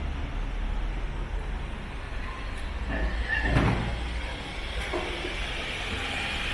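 Street background: a steady low traffic rumble, with a short clatter about three and a half seconds in and a lighter knock about a second later.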